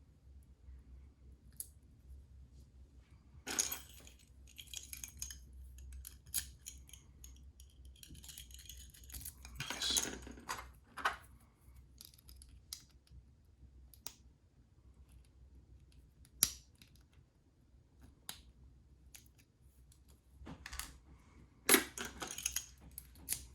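Small metal clicks, clinks and scrapes of a pin-tumbler lock and lockpicking tools being handled while the lock is taken apart, coming at irregular times, with a longer scraping rustle about ten seconds in and the sharpest clack near the end. A low steady hum runs underneath.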